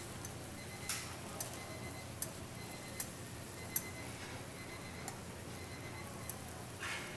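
Steel tongs clicking and scraping against a flat-top griddle as tteokgalbi patties are picked up and stacked, over a steady sizzle of the patties frying in oil. The clicks come singly at uneven intervals, about eight in all; the sharpest is near the middle and a short scrape comes near the end.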